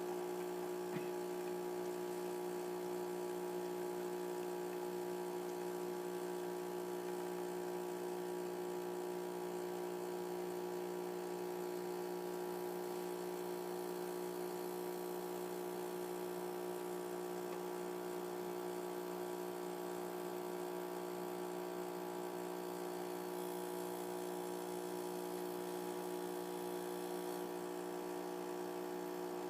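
DeLonghi Magnifica ESAM3300 super-automatic espresso machine brewing a two-cup coffee: its pump runs with a steady buzzing hum, pushing water through the ground coffee.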